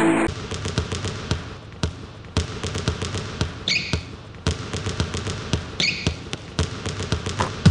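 Irregular thumps and taps of rhythmic gymnastics balls bouncing on a hall floor, heard in a large, echoing hall. A short high-pitched sound comes twice, about two seconds apart. Electronic music cuts off just at the start.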